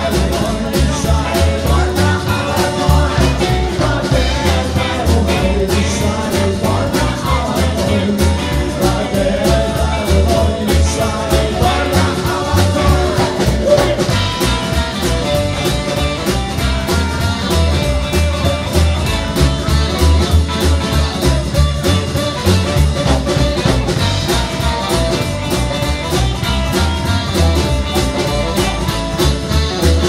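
A live band playing an up-tempo song with a steady beat: a man singing over double bass, acoustic guitar and drum kit.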